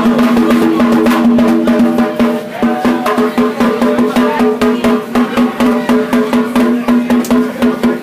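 Loud music with a steady drum beat, snare and percussion hits under sustained pitched notes, the kind people dance to.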